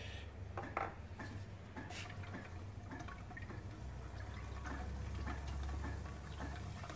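A utensil stirring lemonade punch with ice cubes in a round glass bowl: faint swishing of liquid and scattered small clinks of ice and utensil against the glass, over a low steady hum.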